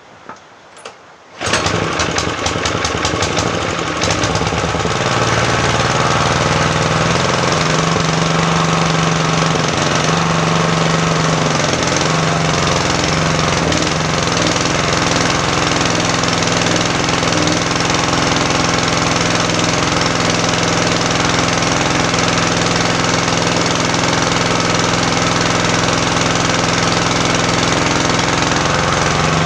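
An engine being test-run: it starts about a second and a half in after two faint clicks, runs unevenly for a couple of seconds, then settles into a steady, even run.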